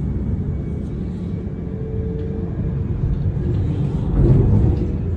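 Rail construction machinery running: a steady low engine rumble with a faint hum above it, swelling louder about four seconds in.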